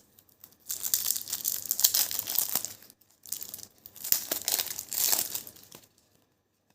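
Plastic wrapper of a trading-card booster packet crinkling and tearing as it is opened, in three bursts, the last ending about six seconds in.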